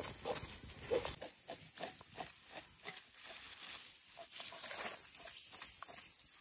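Short scraping clicks of a knife working on a monitor lizard, several a second, over a steady high drone of forest insects that swells about five seconds in.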